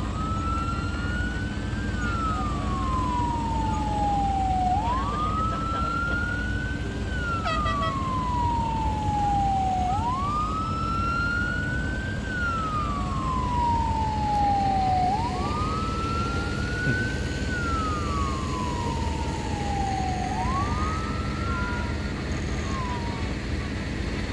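A siren wailing slowly, five rise-and-fall cycles about five seconds apart: each climbs quickly, then slides gradually back down, over a steady low rumble.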